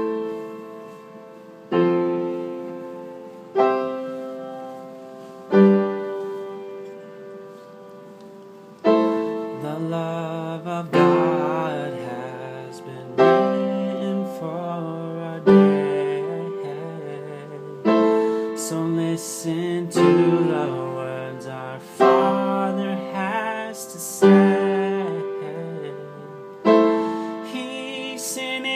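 Instrumental music. Piano chords are struck about every two seconds and left to ring out. About nine seconds in, a bass line and further instrument parts join.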